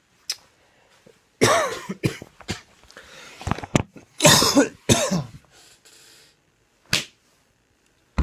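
A man having a coughing fit: a run of harsh coughs in close clusters, then one last cough near the end. It is the lingering cough he has had since catching a cold weeks earlier.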